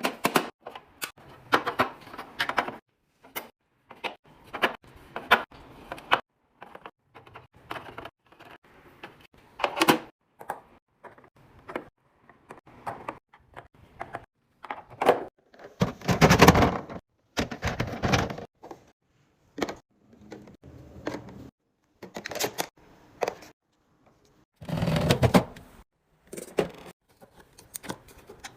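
Food containers and packaging being handled and set down while restocking a fridge: irregular clicks, taps and knocks. There are longer, louder stretches about 16 seconds in and again about 25 seconds in.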